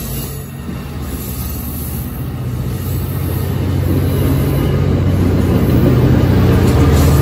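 A passenger train rolls past, with steady wheel and car rumble. Under it a low diesel drone from the EMD F59PHI locomotive pushing at the rear grows steadily louder as it draws near.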